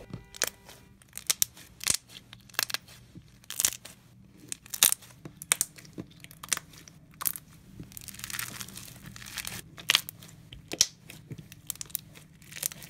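Crunchy slime with small beads mixed in, kneaded and squeezed by hand, giving many short, irregular crackling pops.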